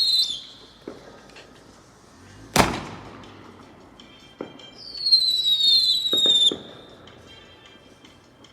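Fireworks: a shrill whistling firework falling in pitch at the start, one loud bang about two and a half seconds in, a few smaller pops, then a second long shrill whistle, falling slightly in pitch, from about five to six and a half seconds in.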